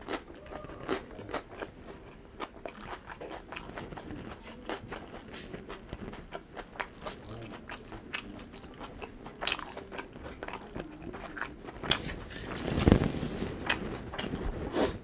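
Close-miked chewing of chicken and fried rice: a steady run of small wet clicks, crunches and lip-smacks. There is a louder breathy rush of noise about thirteen seconds in.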